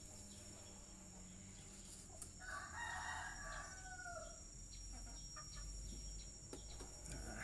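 A rooster crowing once, a call of about a second and a half that falls away at the end, a few seconds in. A few faint knocks of a machete blade on a wooden chopping stump come later.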